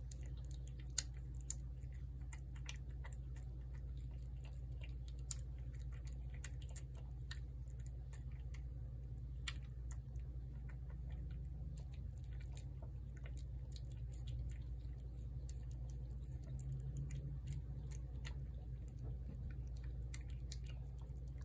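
Cat eating cat food from a plate, chewing in quick irregular clicks over a steady low hum.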